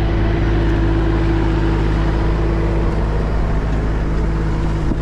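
Solis 26 compact tractor's diesel engine running steadily under load as it pulls a disc plow through the soil.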